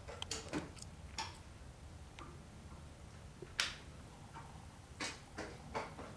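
Scattered light clicks and knocks at irregular intervals over a faint low hum, the loudest a single sharp knock about three and a half seconds in.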